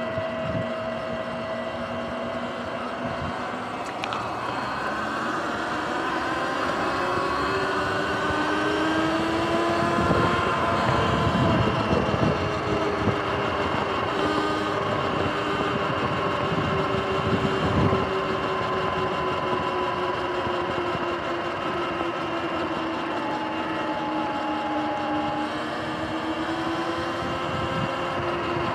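Sur-Ron Light Bee electric dirt bike under way: the motor's whine rises in pitch as the bike speeds up, then eases slowly downward. Wind and tyre rumble run underneath and are heaviest in the middle.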